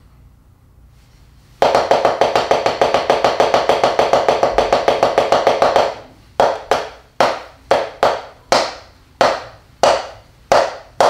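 Taiko bachi striking a rubber drum practice pad: after a short pause, a fast, even run of about nine strikes a second for some four seconds, then single strikes spaced about half a second apart in an uneven, syncopated pattern.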